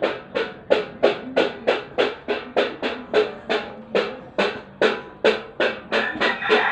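Background music with a steady drumbeat, about three beats a second. Near the end a rooster starts to crow over it.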